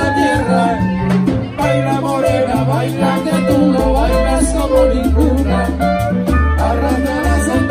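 A live salsa band playing, with a bass line stepping between low notes under steady percussion and held melody notes above.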